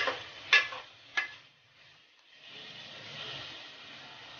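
A metal spoon knocks against an aluminium pot three times in about the first second while stirring beef frying in tomato purée. After a short lull, the steady sizzle of the meat frying on high heat.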